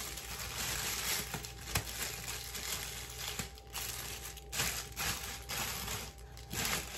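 Deep-conditioning cap crinkling and rustling in irregular surges as it is pulled on and settled over wet, treated hair.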